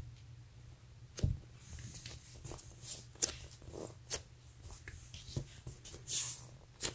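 Faint handling sounds of slow-rising polyurethane foam squishy toys being squeezed and turned in the hands: irregular soft scratches, taps and rustles, with a longer rustle about six seconds in, over a low steady hum.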